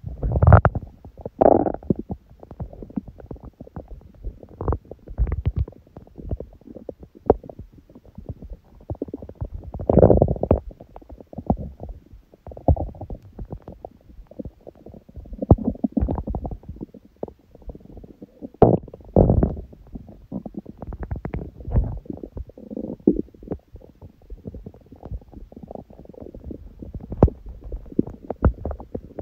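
A hungry human stomach growling: low rumbles and irregular gurgling, bubbling pops, with louder gurgles about a second in, around ten seconds and around nineteen seconds.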